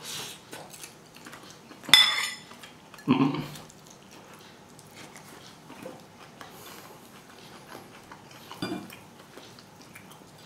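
A metal fork clinking against a bowl and plate while eating, with one sharp ringing clink about two seconds in. Two short wordless voice sounds from the eater follow, one about a second after the clink and another later on.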